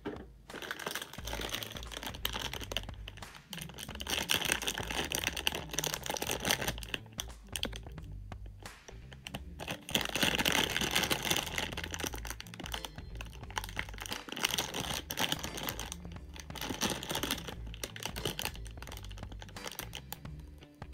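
Crinkling plastic blind bag handled and squeezed by fingers: a dense, crackly rustle, with short pauses about eight and sixteen seconds in.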